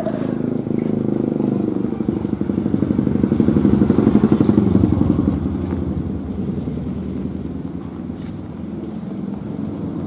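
Small motorcycle engine running as it passes, growing louder to about four seconds in and then fading away.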